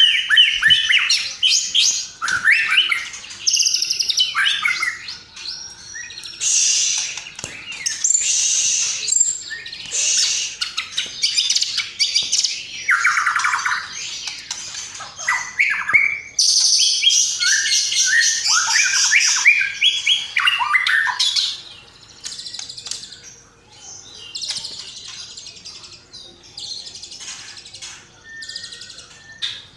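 Recorded songbird calls of the kind used to train caged white-rumped shamas: fast, overlapping high chirps and rapid chattering trills. They are loud for most of the stretch and fainter near the end.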